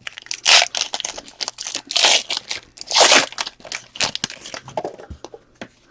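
A 2018 Panini Contenders football trading-card pack being torn open, its wrapper crinkling: a run of sharp crackling rips and rustles, loudest about half a second, two seconds and three seconds in.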